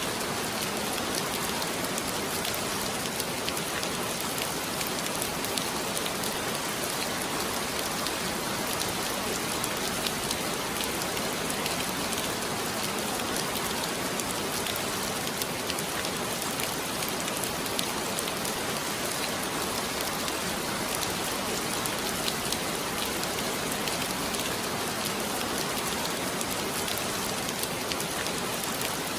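Heavy rain falling steadily, a dense, even hiss of many drops with fine patters of individual drops striking a surface.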